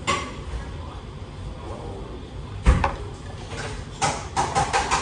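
A small paper cup is set down on a wooden table with one sharp knock about halfway through. A quick run of lighter clicks and knocks follows near the end.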